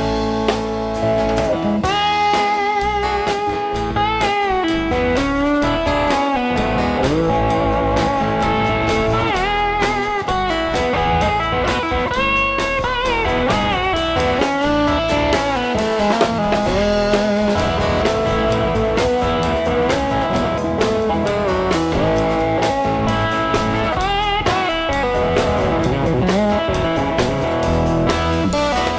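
Live rock band playing an instrumental break. A lead guitar solos over the band with bent notes and wide vibrato.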